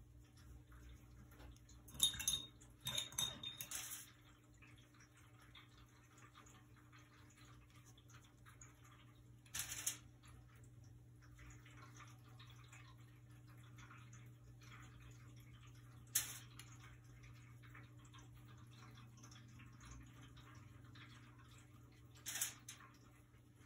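A wet paintbrush brushing faintly over paper, broken by a few sharp clinks of the brush against the glass water jar: a quick cluster about two to four seconds in, then single clinks several seconds apart. A low steady hum runs underneath.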